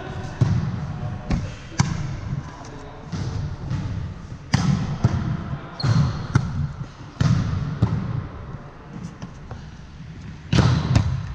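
Volleyball game on a hardwood gym floor: scattered sharp slaps and thuds of the ball being played and of sneakers stepping and shuffling on the wooden floor close by, with a short high sneaker squeak near the middle. Players' voices echo in the hall.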